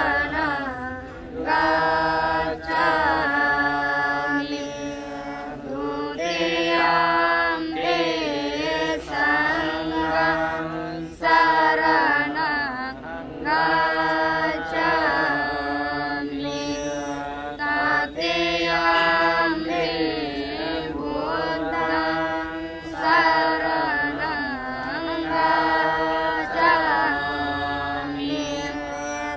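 Buddhist devotional chanting: a sung voice holding long, sliding melodic phrases a few seconds each, over a steady low tone.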